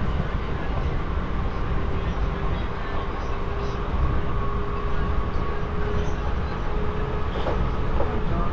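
Southeastern electric multiple-unit passenger train running along the line: a steady low rumble of wheels on track, with a thin steady whine over it.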